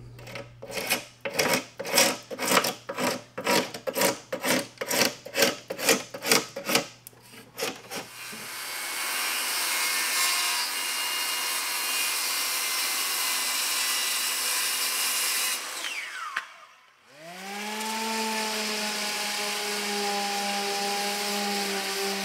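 A hand tool works wood in rhythmic strokes, about two a second, for some eight seconds. Then a Makita circular saw cuts plywood steadily and winds down with a falling whine. About a second later a random orbital sander spins up with a rising hum and runs steadily on the plywood frame.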